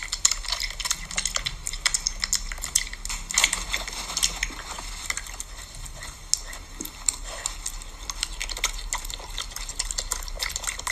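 Piglet smacking its mouth: a fast, irregular run of small wet clicks and smacks.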